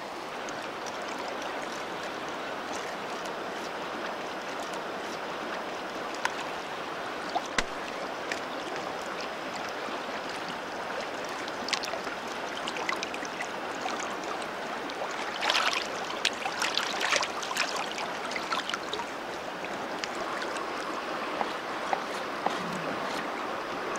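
Mountain river running over rocks: a steady rushing of water. A few short sharp clicks and scrapes stand out, mostly in a cluster past the middle, from knife work on the fish.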